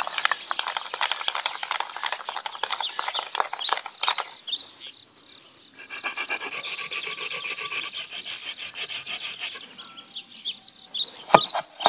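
Thin bamboo umbrella ribs worked with hand tools: a fast run of scratchy, rasping strokes, first while a hole is drilled in a rib and then while a rib is drawn across a toothed semicircular blade, with a short quieter gap about five seconds in. Birds chirp now and then, and a few sharp knocks come near the end.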